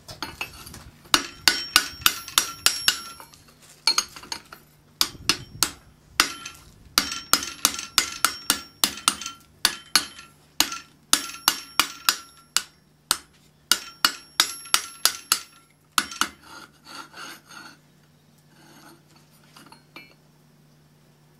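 Hand hammer striking a steel bar laid across a red-hot forged ring, driving the ring down over a forged steel cone mandrel to true it. Quick runs of sharp, ringing metal blows, lighter toward the end, over a steady low hum.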